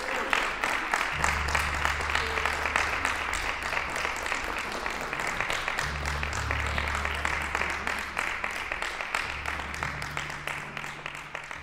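Audience applauding: a dense, even patter of many hands clapping. Underneath it a low steady hum comes in about a second in, drops out and returns twice.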